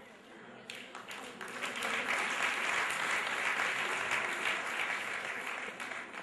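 Audience applauding: the clapping starts under a second in, swells to a full round and eases off near the end.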